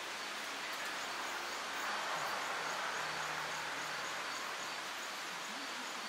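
Outdoor ambience: a steady rushing hiss, swelling slightly about two seconds in, with faint high chirps repeating evenly about twice a second.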